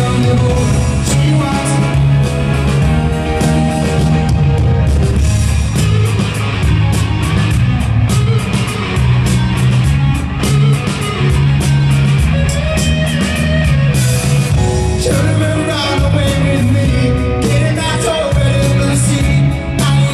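Live rock band playing through an arena PA, heard from the crowd: electric guitars, bass and drums keeping a steady beat, with singing over it.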